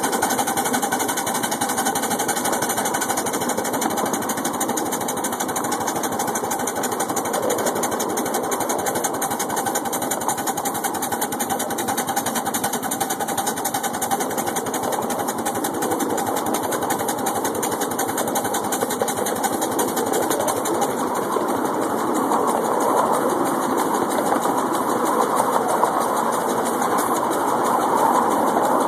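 Ride-on scale live steam locomotive running along a miniature railway track: a steady, fast mechanical clatter that grows a little louder near the end.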